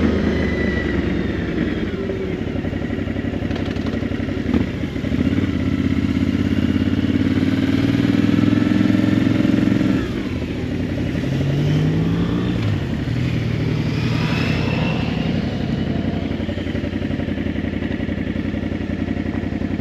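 Motorcycle engine running while riding. The engine note climbs for several seconds, the sound drops suddenly about halfway through, and then it climbs again.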